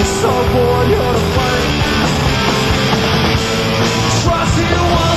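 Loud rock music soundtrack with a steady beat.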